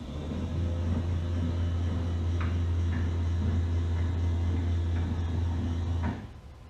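Cessna 182 Skylane's electric flap motor running steadily as it drives the flaps up, a low even hum. It cuts off abruptly about six seconds in, as the flaps reach the up position and the up-limit switch kills power to the motor.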